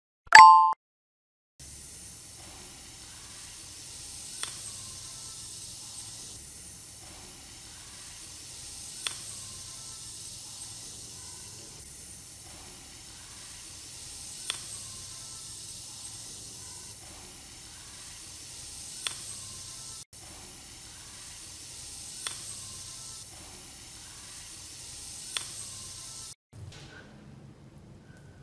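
Steady fizzing hiss of electrolysis bubbles streaming off the electrode wire in a rust-removal bath, gently swelling and fading, with faint clicks every four to five seconds. A short beep sounds just at the start, and the fizzing stops about two seconds before the end.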